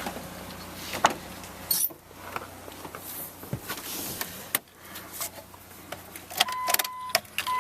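Scattered clicks and knocks of handling around the 2001 Dodge Dakota, then about six and a half seconds in a steady high electronic warning chime from the truck sets in and keeps going.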